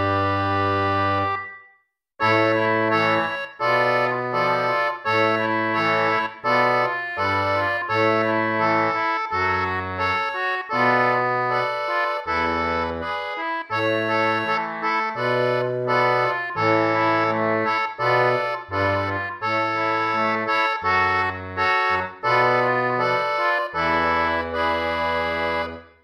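Instrumental music. A held chord breaks off about two seconds in, and after a short silence a tune starts up, with a melody over a bass line that moves every half second or so, until it stops right at the end.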